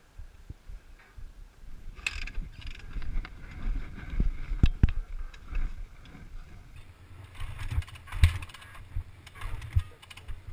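Irregular mechanical clicks, clunks and low thumps from hands-on work on a Yamaha WR dirt bike that won't start; the engine is not running.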